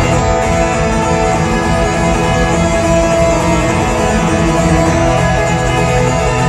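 Solo twelve-string acoustic guitar played live: a steady instrumental passage of ringing picked notes over sustained low notes.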